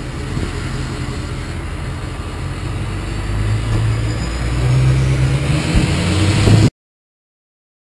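Pickup truck on the move, heard from the back: a steady low engine and road rumble that grows louder from about halfway through, then cuts off suddenly near the end.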